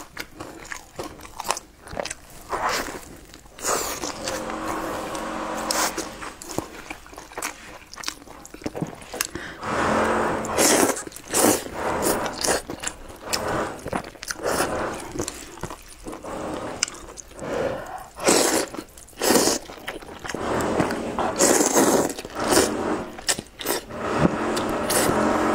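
Close-up eating sounds: bites and chewing of a stuffed flatbread wrap, then repeated slurps of translucent noodles pulled from a bowl of sauce, with smacking between them.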